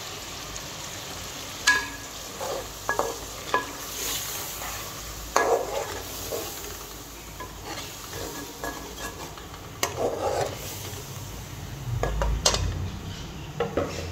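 A slotted metal spatula stirring and scraping chicken pieces around a metal cooking pot, clinking against the pan several times, over a low sizzle of frying.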